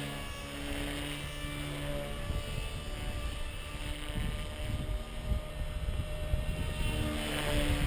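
Small electric RC helicopter (Gaui EP200) in flight, its motor and rotor making a steady whine that fades about two seconds in and comes back near the end. A low rumble of wind on the microphone lies underneath.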